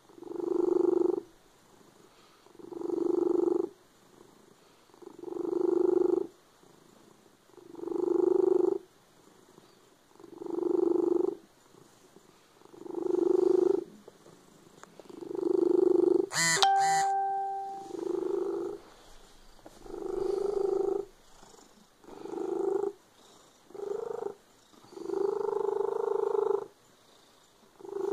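Orange tabby cat purring loudly while being stroked, in strong pulses about every two to three seconds, one with each breath. About halfway through there is a brief sharp click-like sound with a short clear tone.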